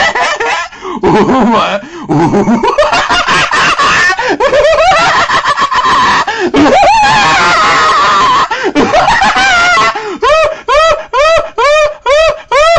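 A man's loud, wordless crazed laughing and shrieking, turning about ten seconds in into a fast, regular run of short 'ha-ha' cackles, two to three a second.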